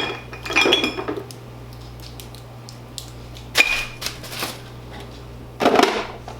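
Food containers and jars knocking and clinking as they are handled and taken out of a fridge. There is a clatter at the start, then single knocks with a short ringing tone about three and a half seconds in and again near the end.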